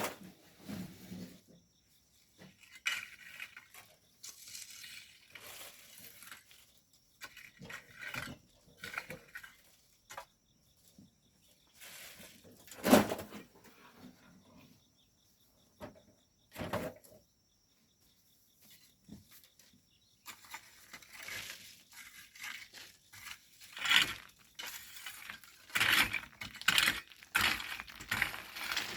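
Hand tools scraping and knocking against volcanic sand and stones in irregular strokes, with a sharp knock about halfway through and a busier run of strikes and scrapes toward the end.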